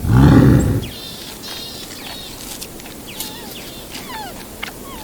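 A big cat's roar ending in a loud grunt in the first second, then small birds chirping and whistling in short, rapid gliding notes.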